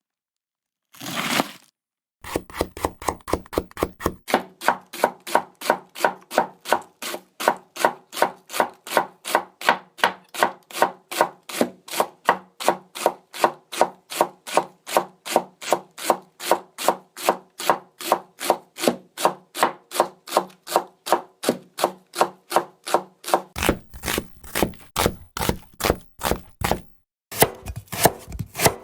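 Japanese kitchen knife (houchou) chopping ingredients on a cutting board in a steady rhythm of about three cuts a second, after one short cut about a second in. The strokes change in tone and briefly pause near the end.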